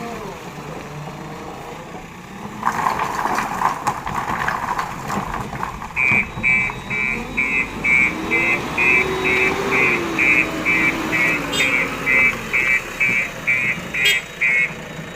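Reversing alarm beeping at an even pace, about two beeps a second, over the running diesel engine of a JCB 3DX backhoe loader, whose pitch rises and falls. About a second before the beeping starts there is a burst of rattling noise.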